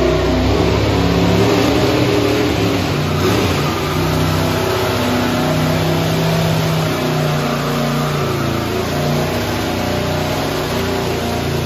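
Car engine held at high revs with the rear tires spinning during a burnout donut, the engine note rising and falling steadily without a break.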